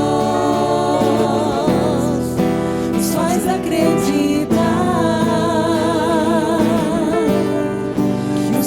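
Christian worship song with instrumental backing and a voice holding wavering, sustained notes.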